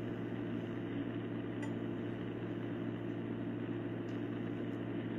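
Steady low hum with a light background hiss: the room tone of the interrogation-room recording, no speech.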